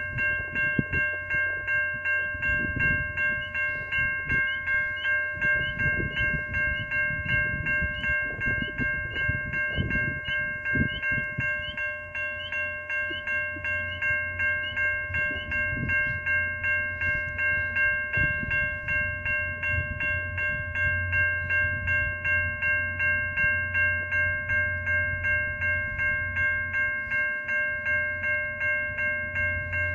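Railway level-crossing warning bell ringing continuously in an even rhythm, about two strokes a second, over a low steady rumble from the stopped passenger train.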